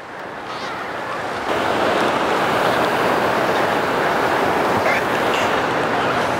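Ocean surf washing over and around the shoreline rocks below, a steady rushing that grows louder about a second and a half in.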